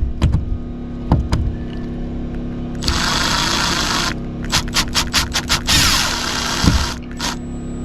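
A handheld power driver run in bursts on a fastener: one burst of about a second, a quick string of short trigger pulses, then another burst of about a second. The fastener is spinning in place instead of backing out. A steady low hum runs underneath, and a couple of knocks come in the first second and a half.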